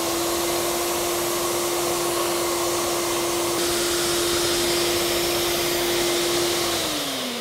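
Ash vacuum running with a brush attachment on its hose: a steady motor whine over a rush of air. Near the end the motor's pitch starts falling as it winds down.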